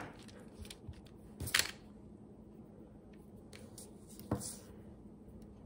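Quiet handling sounds as hands press modelling compound into a silicone mould: two soft, brief taps, one about a second and a half in and another about three seconds later, over faint room tone.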